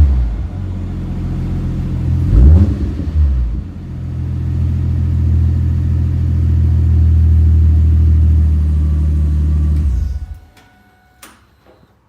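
Stock 1990 Toyota Supra Turbo's 7M-GTE 3.0 L inline-six running through its stock exhaust. The revs settle to idle, there is one quick blip about two and a half seconds in, and then it idles steadily until the engine is shut off near the end, leaving a few faint clicks.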